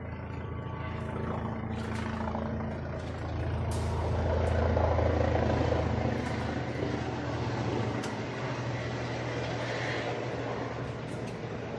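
Low, steady engine rumble of a motor vehicle, swelling louder about four seconds in and easing off after about six seconds, with a few faint clicks.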